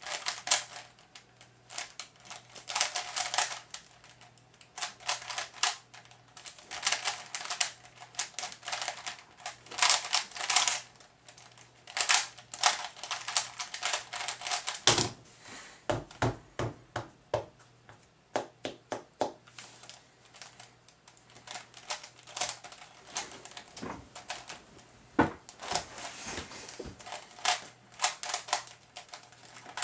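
A Type A 3x3 speed cube being turned fast, its layers clicking in quick runs broken by short pauses. About halfway through, a few heavier knocks come as the solve ends.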